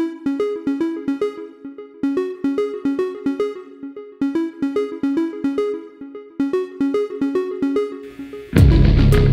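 Music: a repeating riff of short, evenly paced synthesizer-like notes. About eight and a half seconds in, a much louder full mix with heavy bass comes in.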